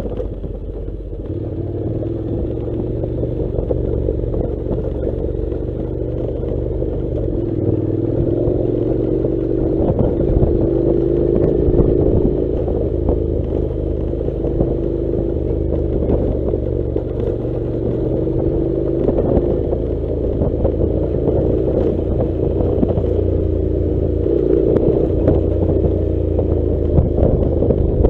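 Honda NC700 motorcycle's 670 cc parallel-twin engine running on a dirt track, its pitch rising and falling with the throttle. Frequent clicks and clatter from the rough ground and loose gravel run through it.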